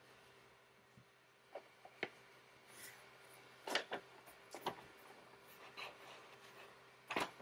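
A sheet of paper being slid and rubbed between the print bed and nozzle of a Creality Ender 3 V2 Neo 3D printer: short scratchy rubs and taps, a paper-friction check of the nozzle height while leveling. The louder rubs come about four seconds in and near the end, over a faint steady hum.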